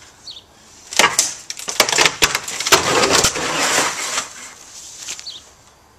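Rotten wooden fence boards cracking, splintering and crashing down as the fence is demolished. A run of sharp cracks and snaps starts about a second in, then a longer splintering, clattering crash fades out about four and a half seconds in.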